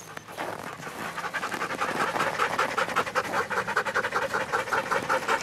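Husky sled dogs in harness panting, a quick, even run of breaths that grows stronger about a second in.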